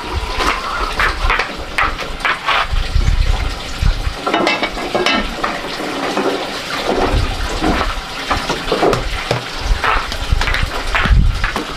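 Irregular light knocks and scuffs of someone moving about and handling a woven bamboo tray, over a low, uneven rumbling noise that comes and goes.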